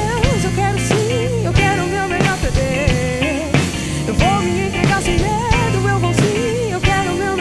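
A band playing an instrumental rock passage: drum kit keeping a steady beat under bass, with a lead melody that bends and wavers in pitch.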